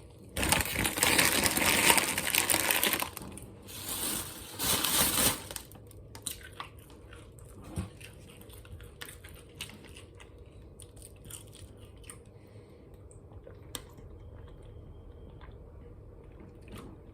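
Snack packaging crinkling and rustling as it is handled, in two loud bursts during the first five or so seconds, followed by faint scattered clicks and light handling noises.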